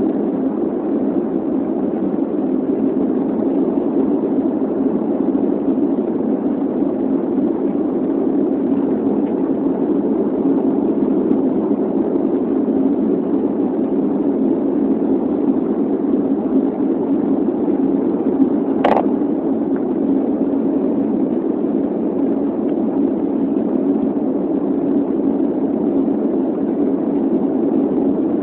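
Steady cabin roar inside an Airbus A330 climbing after takeoff: jet engine and airflow noise heard through the fuselage. A single short click about two-thirds of the way in.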